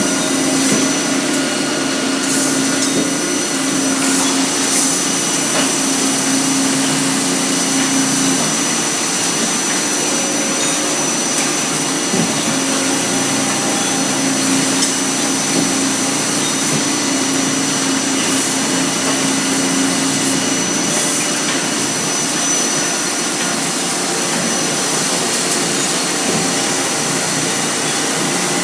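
Factory production-line machinery running with a steady mechanical din, and a low hum that comes and goes.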